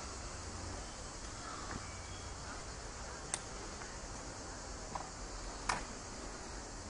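Steady outdoor background hiss, broken by three short, sharp sounds in the second half; the last is the loudest.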